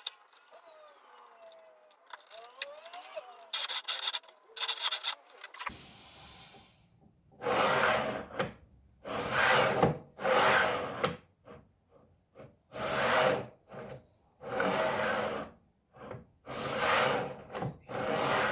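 Slow back-and-forth strokes of a hand tool rubbing across a workpiece, each about a second long, starting about six seconds in. Before them, two short loud rattling bursts near four and five seconds.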